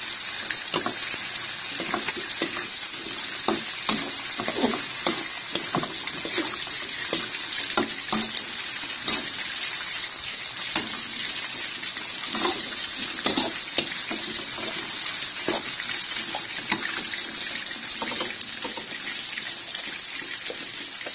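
Stir-frying in a metal wok: a steady sizzle of chicken gizzards, livers and vegetables, with the spatula scraping and clinking against the pan at irregular intervals, about once or twice a second.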